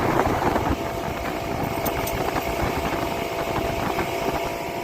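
Motorboat engine running steadily while the boat cruises.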